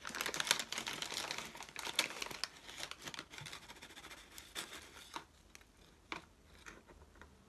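Clear plastic bag of orchid fertilizer crinkling as a small plastic measuring spoon is dug into it and drawn out, a dense crackle for the first few seconds that thins to scattered ticks and scrapes.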